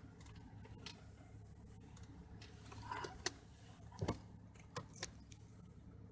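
Low, faint engine hum heard inside a Jeep Grand Cherokee's cabin while it creeps along slowly, with a handful of sharp clicks and knocks around the middle.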